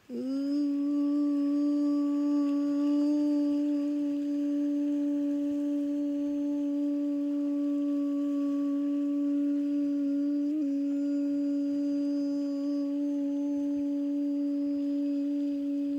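A steady held tone on one note, with a few overtones, sliding up into pitch as it starts and holding unbroken, with a brief wobble about ten seconds in.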